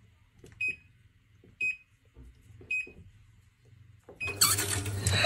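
Washing machine control panel beeping as its buttons are pressed: three short high beeps, about one a second. About four seconds in, a loud, noisy sound cuts in and takes over.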